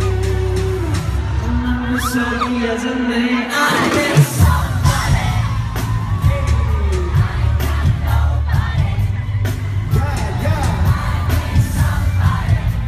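Loud pop music with singing played through a concert sound system, with fans in the crowd whooping and yelling. Held synth chords and bass give way, after a brief drop about three and a half seconds in, to a heavy bass beat with sharp drum hits.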